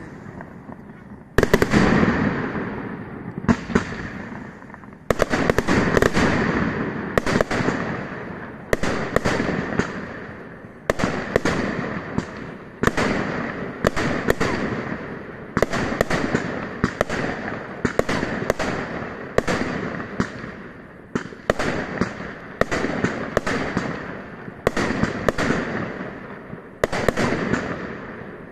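Fireworks display: aerial shells bursting in steady succession, about one loud bang a second after a short lull at the start. Each bang is followed by a fading rumble and crackle.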